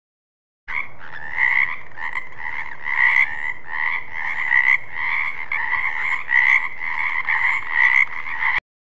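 A frog croaking in a steady run of rasping calls, about two a second, that starts suddenly and cuts off abruptly near the end.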